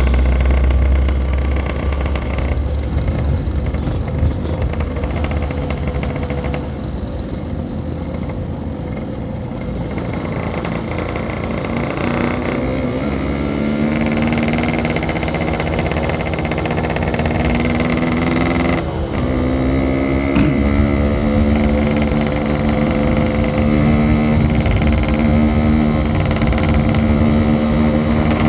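Yamaha RX-King's two-stroke single-cylinder engine running at a relaxed cruise, with wind rumble on the microphone. The engine note grows stronger and rises gently from about twelve seconds in and dips briefly about two-thirds of the way through.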